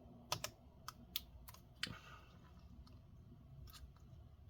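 About half a dozen sharp small clicks and taps in the first two seconds, then a faint one later: the small plastic connector on an Acer Nitro AN515-43 laptop's battery cable being handled and lined up with its socket on the motherboard.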